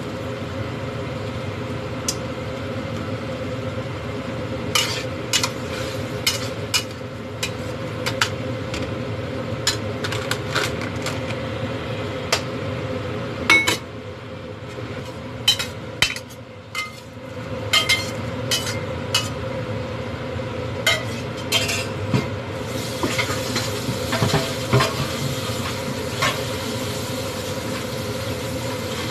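A metal spatula stirring food in a frying pan, with repeated sharp clinks against the pan and sizzling, over a steady mechanical hum.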